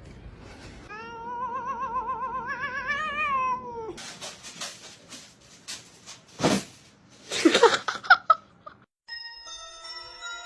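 Domestic cat yowling: one long caterwaul with a fast, warbling wobble in pitch, rising slightly before it breaks off. It is followed by a different scene with scattered clicks and a few short, loud cries, and music comes in near the end.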